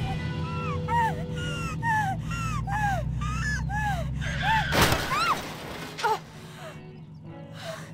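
Sound-designed car chase: a car engine drone under a police siren wailing up and down about twice a second, with a loud rush just before five seconds in, after which the sound drops much quieter.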